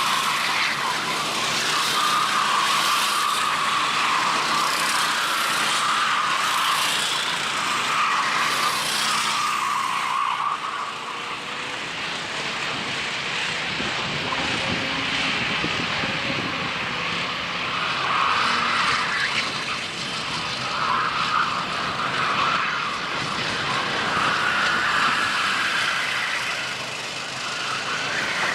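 Racing kart engines running at speed, the engine note swelling and fading as the karts go round the track.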